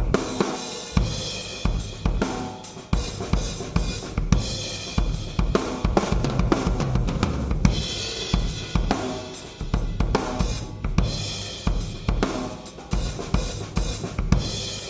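Drum kit played continuously: a Yamaha 9000 Recording Custom wood kit with a 24-inch bass drum, Ludwig Supraphonic aluminium snare, toms and Paiste 505 cymbals, with cymbal crashes every few seconds over bass drum, snare and hi-hat. It is picked up by a Yamaha EAD10 kick-drum-mounted microphone unit.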